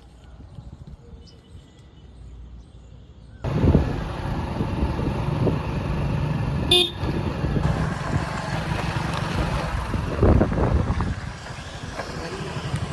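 Faint outdoor background, then abruptly the loud, steady running of heavy diesel machinery, with a short horn toot about halfway through.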